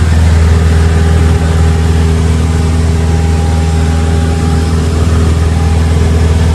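Cessna 172's piston engine and propeller droning steadily in flight, heard from inside the cabin with a rush of air over the airframe.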